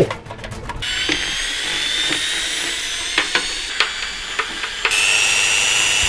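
Electric drill-driver running steadily on the screws of a microwave's metal casing, a steady whine that steps up louder and higher about five seconds in. A few sharp clicks come before the motor starts.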